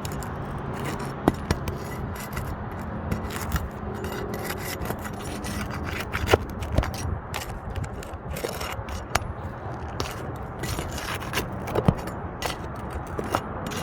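Roof shingles being scraped and pried apart by hand, a steady rough scraping and rubbing broken by scattered sharp snaps and clicks.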